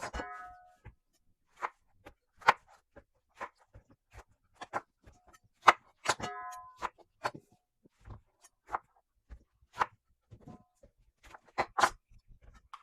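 A kitchen knife cutting lemons in half, its blade knocking irregularly on a cutting board, about a dozen sharp knocks. Two brief plucked-string notes ring near the start and about six seconds in.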